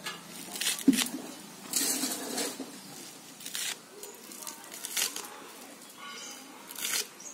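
Bundled water-lily stems being chopped into short pieces on a bonti, a fixed curved kitchen blade: short cutting sounds in irregular bursts, about five of them, a second or two apart.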